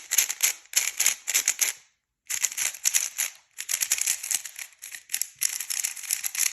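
Rapid plastic clicking and clacking of a YS3M Ballcore speedcube being turned fast by hand, in quick runs of turns with a short break about two seconds in.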